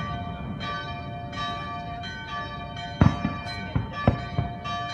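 Church bells ringing, with long tones struck again every second or so. From about three seconds in, fireworks bang over them: one sharp bang, the loudest, then several smaller ones.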